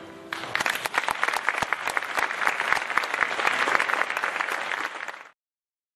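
Audience applauding as the choir's last held note dies away; the clapping cuts off suddenly about five seconds in.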